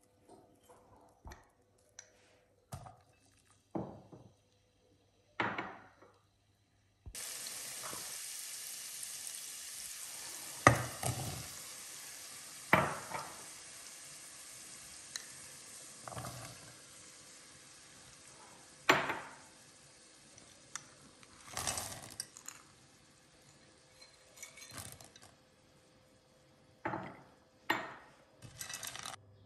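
Chopped onion sizzling in hot oil in a pot: the hiss starts suddenly several seconds in and slowly dies down. Over it come sharp knocks and clinks of a bowl and utensil against the pot as diced potatoes are tipped in and stirred.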